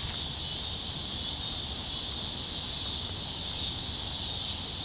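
Steady, even high-pitched chorus of insects, with a low rumble underneath.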